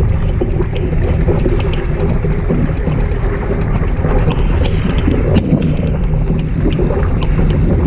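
Laser 2 sailing dinghy moving fast through choppy water: a steady rush of water along the hull under heavy wind buffeting on the microphone, with short sharp splashes and taps every second or so.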